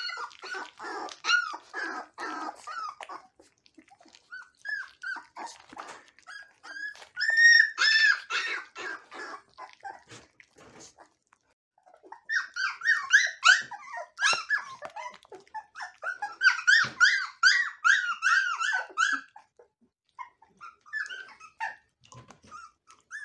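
Young puppies whining and squealing in short, high-pitched cries while they eat, with wet smacking sounds mixed in. The cries come in bouts, with a lull about ten seconds in.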